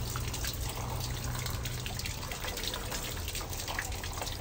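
Shower running, water spattering and dripping steadily.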